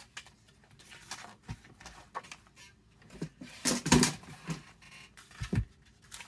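Sheet of patterned craft paper handled on a tabletop: scattered short rustles and light knocks, the loudest about four seconds in as it is picked up.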